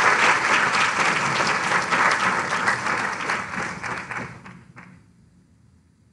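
Audience applauding, the clapping thinning out over the second half and dying away with a few last claps about four and a half seconds in.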